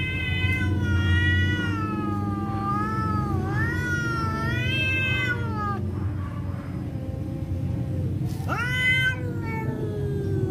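Two cats squaring off, yowling at each other in a threat display: a long wavering yowl that runs for about six seconds, then a quieter stretch, then a sharply rising yowl that sinks into a long low moan.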